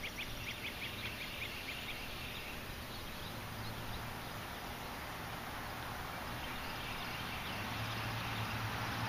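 A small bird chirps rapidly for the first two to three seconds over a steady outdoor wash. Then a Ford pickup truck approaching along the street makes a low engine hum and road noise that grow slowly louder toward the end.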